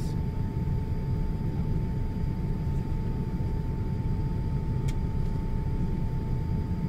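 Steady cabin noise of a Boeing 787-8 Dreamliner in flight: an even low rumble of engines and airflow with a faint constant hum tone above it. A single short click comes about five seconds in.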